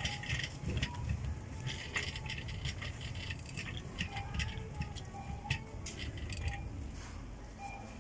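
Supermarket background noise: scattered clicks and rattles over a steady low rumble, with a few faint short tones.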